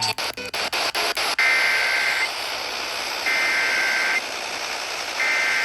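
A few irregular clicks, then three bursts of Emergency Alert System SAME digital data, each a raspy two-tone warble about a second long, about a second apart, over steady radio hiss. The coded header that introduces a new weather warning.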